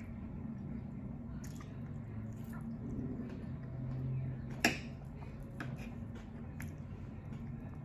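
Close-miked chewing and wet mouth clicks, with a fork scraping and clicking against the plate as it digs into the food. There are several sharp clicks, the loudest a little past halfway.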